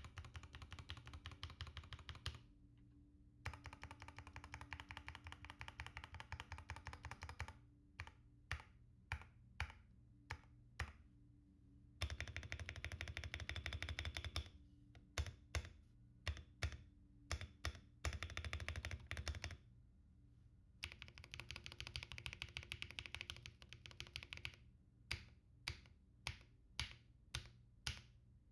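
Typing on a Royal Kludge RK84 mechanical keyboard: fast runs of keystrokes alternate with slower, separate single key presses about twice a second.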